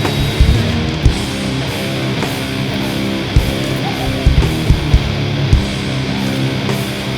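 Heavy rock music with distorted electric guitar and a driving drum beat.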